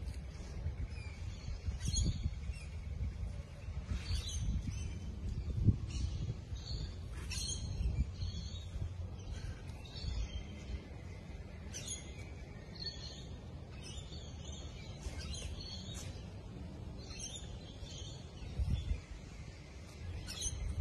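Kangaroos feeding on a pile of cut needle-leaved branches, with irregular short rustles and crunches, while birds chirp now and then. A steady low rumble runs underneath.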